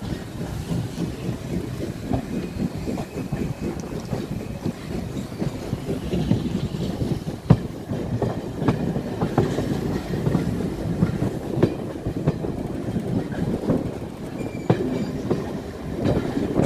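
Carriage wheels of a steam-hauled passenger train clattering over rail joints and pointwork, heard from an open carriage window, with a sharp metallic clank about seven and a half seconds in.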